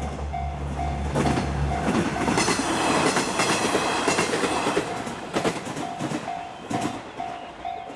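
Level-crossing alarm bell dinging about twice a second as a diesel railcar passes over the crossing. A low engine drone gives way after about two seconds to loud rushing wheel noise, and two wheel clacks over the rail joints come near the end while the bell keeps ringing.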